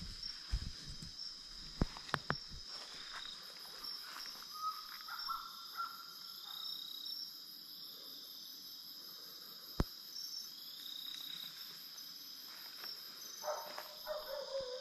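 Night insects chirring: a steady high trill, joined a few seconds in by a faster pulsing trill. In the first two seconds there are footsteps on dry leaf litter.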